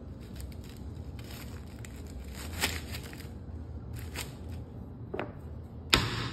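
A cleaver pressing and working through a frozen fish in its plastic packet on a wooden chopping board: plastic crinkling and crackling with small clicks, then one sharp chopping knock near the end.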